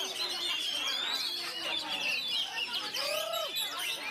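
Several caged oriental magpie-robins singing at once: a dense, continuous tangle of quick whistles, trills and chatter.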